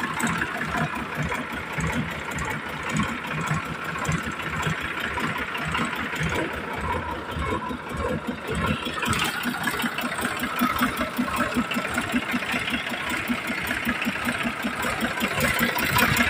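The diesel engine of a 2017 Sonalika DI 750 tractor running steadily, its firing pulses even throughout.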